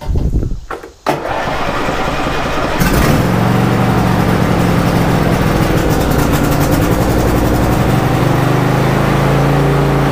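Riding lawn tractor's small engine being started cold on full choke: the starter cranks briefly from about a second in, the engine catches about three seconds in and then runs steadily. It starts quickly, the sign that the readjusted choke cable now closes the choke fully.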